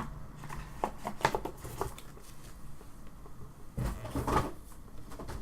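Trading cards and their packaging being handled on a table: a few light clicks and taps about a second in, then a short cluster of handling noise around four seconds in.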